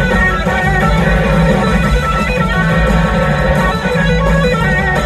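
Electric guitar playing a lead solo with gliding, wavering notes, over a live band's bass and drums.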